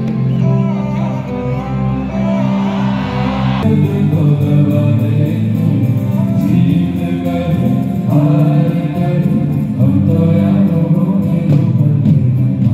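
Live concert music: singing over a band, cutting abruptly to a different passage about three and a half seconds in.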